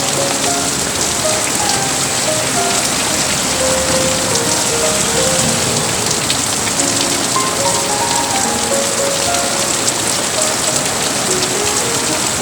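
Steady rain falling, a dense even hiss, with a soft melody of short notes faintly beneath it.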